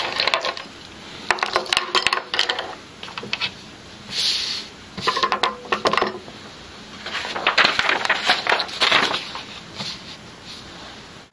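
Clicks, light knocks and paper rustling in several bursts as small objects and papers are gathered up and set down on a wooden tabletop.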